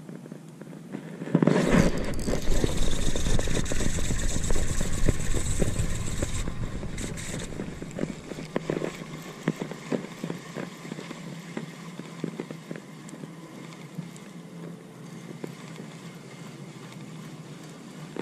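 A loud burst of noise lasting about five seconds near the start, then a spinning reel being cranked, with scattered handling clicks, while a small fish is reeled in on light line.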